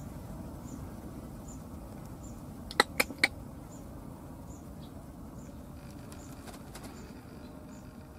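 Three sharp clicks in quick succession about three seconds in, over a steady low outdoor background with a faint high tick repeating about every two-thirds of a second.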